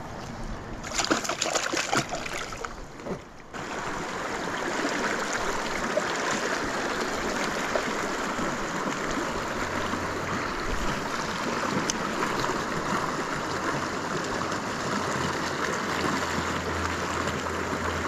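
River water flowing steadily, a continuous rushing noise. A few short scuffs or splashes sound in the first few seconds.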